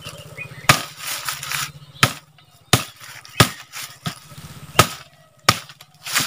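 Small axe chopping a freshly cut kevati tree branch into short pieces: eight sharp chops, about one every 0.7 seconds.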